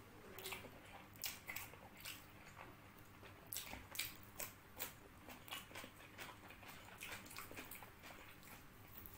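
Close-miked eating: chewing with a run of short, sharp crunching clicks, thickest in the first half, then fainter wet mouth and food sounds.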